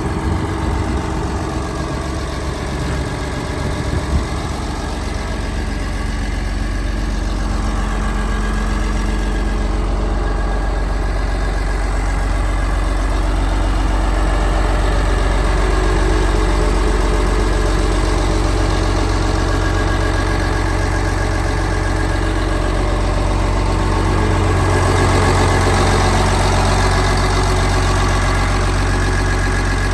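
Liebherr PR756 crawler dozer's diesel engine running steadily, with a sharp knock about four seconds in. The engine grows louder from about five seconds in and swells again a few seconds before the end.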